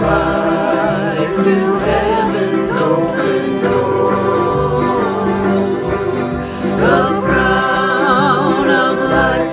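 Several voices singing a gospel song together, accompanied by strummed acoustic guitars and a ukulele; the singing grows fuller and louder about seven seconds in.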